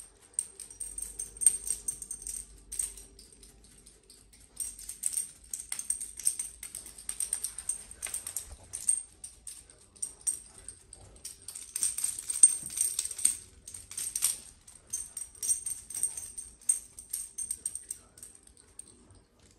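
A Rottweiler's metal chain collar jingling and rattling in irregular clusters as the dog shifts about, with its claws clicking on a tile floor.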